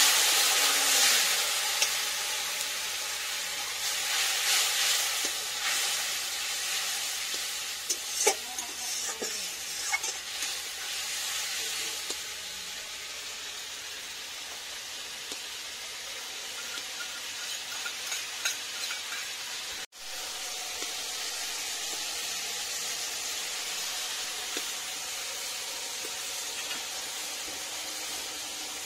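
Water poured into a wok of hot oil and fried spice paste sizzles loudly at first, then eases into a steady sizzling as the gravy cooks, with a few light clicks about a third of the way in.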